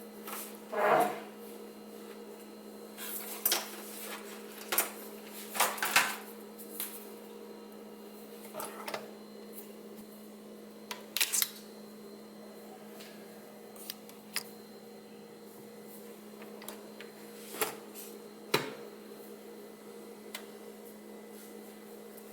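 Scattered clicks and knocks of objects being handled, over a steady low hum.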